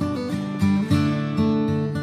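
Background music on acoustic guitar, strummed and plucked, with new notes struck every half second or so.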